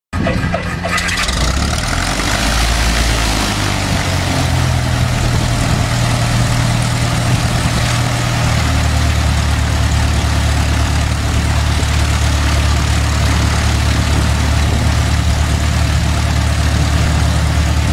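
Loud, steady engine noise: a low hum under a broad hiss. The hum drops to a lower pitch about halfway through.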